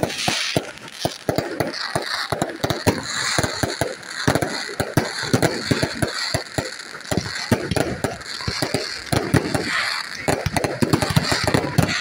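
Aerial fireworks going off in rapid, irregular succession: many sharp bangs close together, with no real pause.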